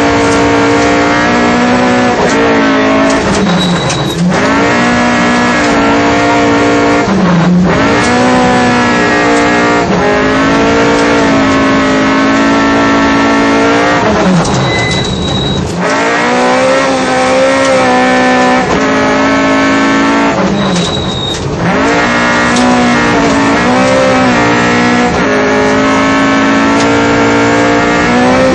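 Rally car engine heard from inside the cabin, revving hard and climbing in pitch through the gears. There is a short drop at each gear change, and a few longer lifts off the throttle before it pulls again.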